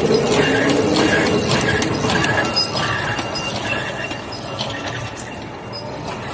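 CS-A barbed wire making machine running after being restarted: gears, clutch and twisting head clattering, with a steady run of sharp clicks and a rattle that repeats about twice a second as the strand wires are twisted and barbs wrapped.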